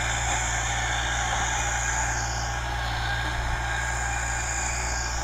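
Farm tractor engine running steadily while plowing the field, heard from a distance.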